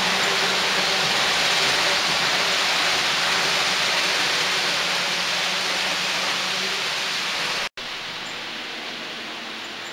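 Model passenger train rolling past close by: a steady rushing hiss of wheels on track with a faint low hum under it. The sound cuts off suddenly about three-quarters of the way through, and a fainter steady hiss follows.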